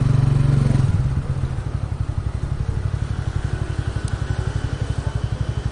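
Bajaj Pulsar N150's single-cylinder engine dropping back about a second in to a steady, evenly pulsing idle. It is the engine whose owner complains of a tappet noise.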